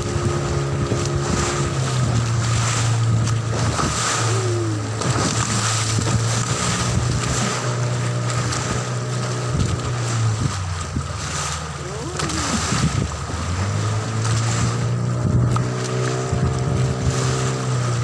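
A small open boat's engine runs steadily under way through choppy sea, easing off about ten seconds in and picking up again a few seconds later. Wind on the microphone and repeated knocks of the hull against the waves.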